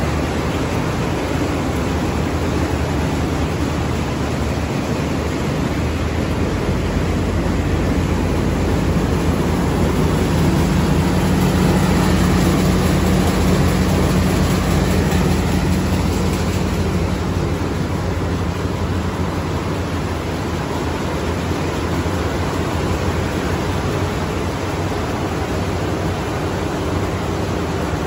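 Combine harvester running while parked, its engine and threshing mechanism making a loud, steady mechanical drone. A deeper hum swells in about a third of the way through and fades a few seconds later.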